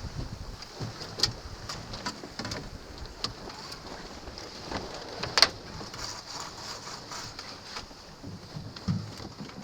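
Wind and water rushing past a sailing dinghy with scattered clicks, knocks and rattles of rigging and sheets as the crew drop the spinnaker; the sharpest knock comes about five and a half seconds in.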